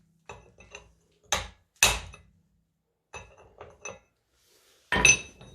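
Hammer blows on steel, driving at a stuck wheel-hub bearing outer race: two heavy ringing strikes half a second apart, another near the end, and lighter metallic taps between. The race is seized in the hub and very hard to knock out.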